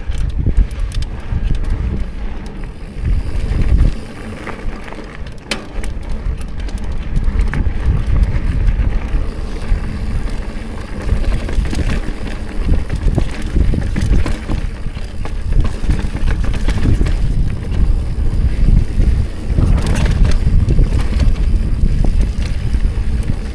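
Mountain bike riding down a dirt singletrack: a steady low rumble of wind on the microphone and tyres rolling over dirt and small rocks, with many short clicks and knocks as the bike rattles over bumps.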